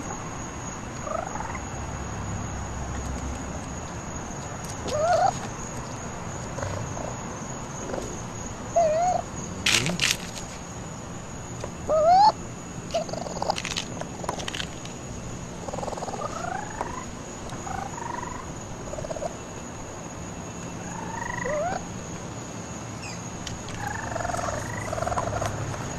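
Baby raccoons calling with short, rising chirps and twitters, scattered throughout, with a few sharp knocks near the middle.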